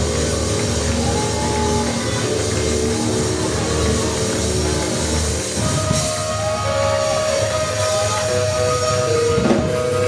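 Gospel praise music from a band, with drums and long held chords over a steady bass line.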